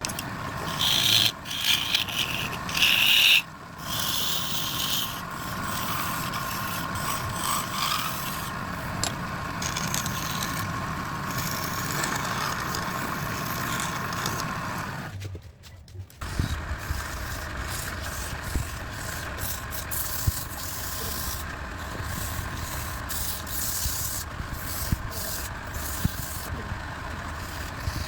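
Wood being worked: loud rubbing and scraping strokes on wood in the first few seconds, then steady scraping over a machine hum, with scattered knocks after a brief break.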